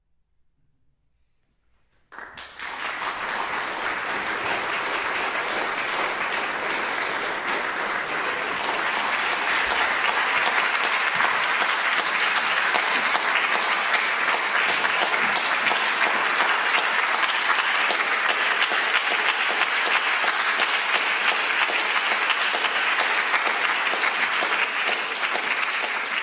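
About two seconds of near silence, then an audience suddenly breaks into steady applause that keeps going.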